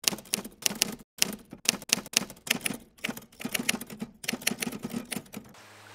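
Typewriter keys clacking in a fast, irregular run of keystrokes, about five a second, with a brief pause about a second in; the typing stops shortly before the end.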